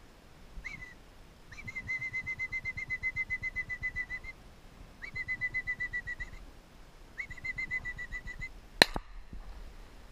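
A high, fast-trilled whistle, a short call and then three long ones of one or two seconds each, steady in pitch after a quick upward start. Near the end comes a single sharp click, louder than the whistles.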